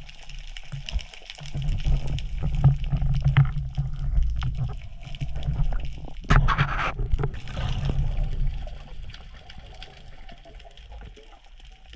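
Water noise heard underwater through a camera housing as a spearfisher moves: a steady low rumble with scattered small clicks, and a louder rushing burst of about a second, six seconds in.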